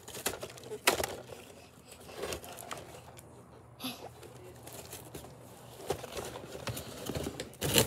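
A cardboard toy box with plastic packaging being handled and turned over: rustling and crinkling with scattered knocks. There is a sharp knock about a second in and another loud one near the end.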